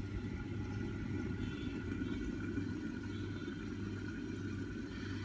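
Rice and water boiling in a covered pot on a gas stove, a steady low bubbling under the glass lid, with a steady low hum beneath. The pot has just come to the boil, lid on, with the flame turned right down.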